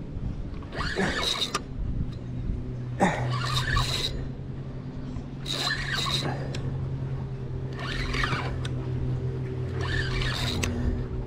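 Penn Pursuit spinning reel sounding in short bursts about every two seconds as a hooked fish is cranked in, over a steady low hum.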